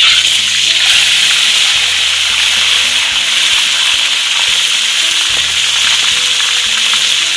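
Marinated whole fish frying in hot oil in a steel wok: loud, steady sizzling that starts abruptly and holds evenly throughout.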